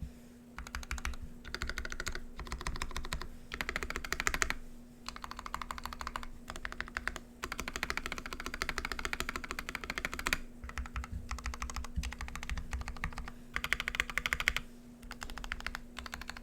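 Typing on a KBD67 custom mechanical keyboard with a brass plate, lubed Gateron Ink switches and GMK keycaps. The key clicks come in quick passages about one to two seconds long, broken by short pauses.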